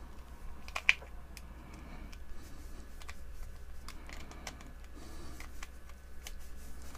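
Small plastic clicks, taps and scrapes of a screwdriver working the terminal screws of a UK three-pin mains plug as it is taken apart to be rewired, with one sharper click about a second in.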